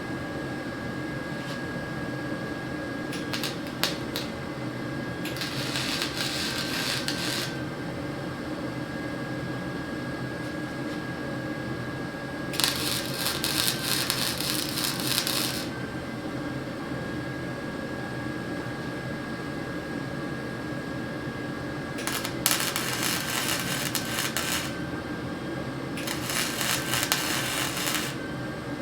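Arc welder tack welding steel bracing: four crackling bursts of two to three seconds each, each starting with a sharp pop as the arc strikes.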